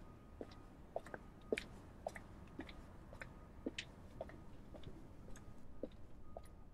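Faint, irregular clicks and ticks, about two a second, some higher and some lower, over a low steady hum.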